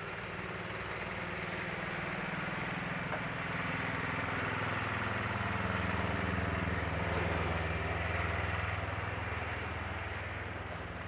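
An engine running steadily over city street noise, growing louder toward the middle and then fading as it passes.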